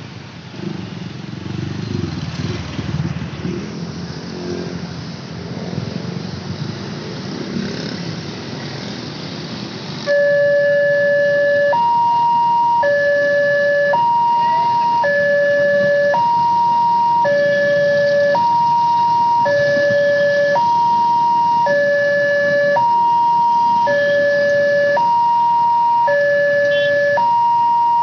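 Road traffic passing, then about ten seconds in a railway level-crossing warning siren switches on abruptly and runs loud, alternating between a low and a high tone, each held about a second, warning that a train is approaching.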